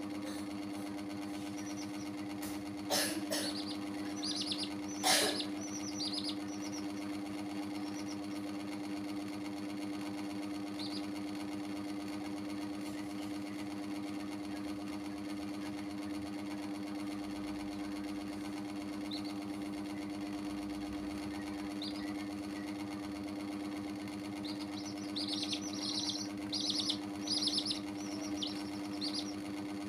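A steady mechanical hum from a small motor runs throughout. Two sharp knocks come about three and five seconds in. Baby chicks give short high peeps around those knocks and again in a quick run near the end.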